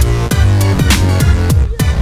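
Electronic dance music with deep, sustained bass and a steady drum beat, dropping out briefly just before the end.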